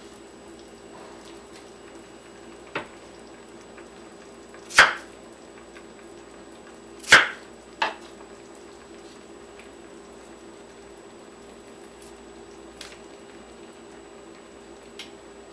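Chef's knife cutting through yellow yam and striking a wooden end-grain cutting board: four sharp knocks, the loudest about five and seven seconds in, with a couple of faint taps later, over a steady low hum.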